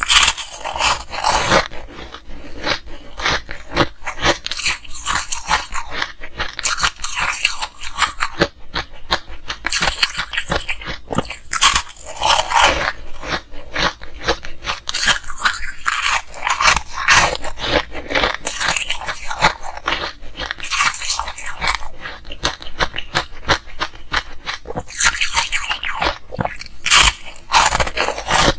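Ice being bitten and chewed: a dense, continuous run of crisp cracks and crunches.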